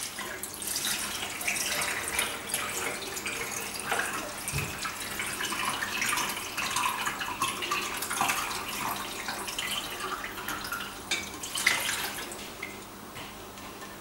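Water poured from a saucepan into the bottom of a stainless-steel dishwasher tub, splashing and trickling steadily, then tapering off near the end. The water is filling the sump to make the pressure switch click.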